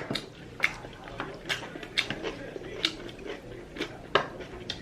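Close eating noises over a bowl of spicy ramyeon noodles: a run of sharp, irregular clicks and smacks, roughly two a second.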